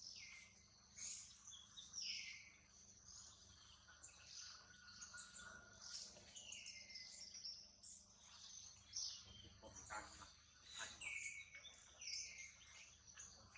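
Faint bird chirping: short high calls, each falling in pitch, repeated every second or two over a steady high-pitched hum.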